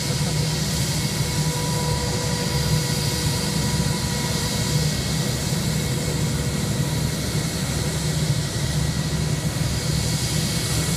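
Airbus A319 airliner's jet engines running steadily on the runway before the takeoff roll: a constant rumble with a few steady whining tones over it.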